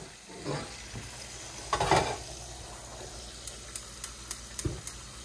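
Gas range's spark igniter clicking about four times a second near the end as the burner knob is turned, over the steady sizzle of fish frying in a pot of hot shortening. A knock about two seconds in as a cast iron skillet is set on the burner grate.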